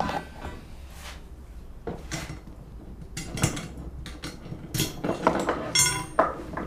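Steel anchor chain and its shackle clinking and rattling as they are handled, in irregular metallic clinks that come thicker in the second half.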